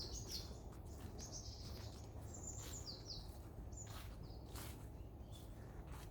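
Small forest birds calling: short, high-pitched notes repeated every second or so, several of them falling in pitch.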